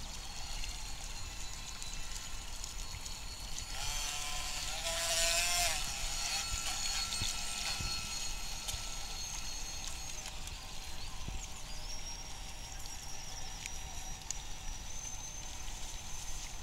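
High-pitched whine of electric radio-controlled model boat motors, changing pitch and loudest about four to six seconds in, over a steady low rumble.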